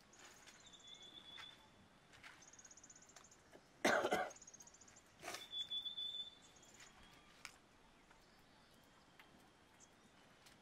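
Insects trilling in short, finely pulsed high bursts, with a thin high steady chirp now and then. A sudden harsh sound comes about four seconds in and a weaker one just after five seconds.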